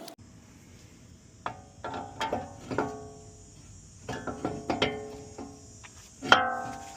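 Background music of plucked string notes, coming in short irregular phrases with each note dying away quickly.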